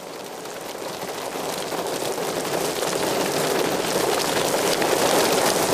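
Rain and gusty wind on the microphone: a dense, crackling rush that grows steadily louder.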